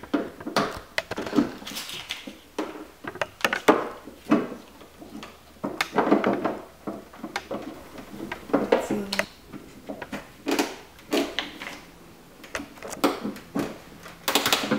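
Irregular clicks, knocks and scrapes of a flathead screwdriver prying plastic license-plate lamp housings out of a car's tailgate trim.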